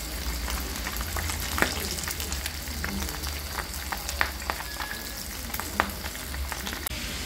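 Whole fish frying in hot oil in a frying pan: a steady sizzle with scattered sharp pops and crackles of spattering oil, the loudest pops about a second and a half, four and six seconds in.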